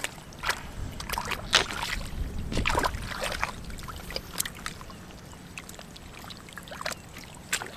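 Hands squelching and sloshing in shallow muddy water while feeling for catfish, with scattered small splashes and wet clicks, busiest in the first half.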